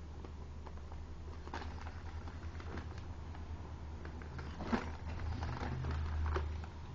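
Origami paper being handled and creased by hand: soft, scattered crinkles and taps, with a sharper crackle a little before five seconds in. A steady low hum runs underneath.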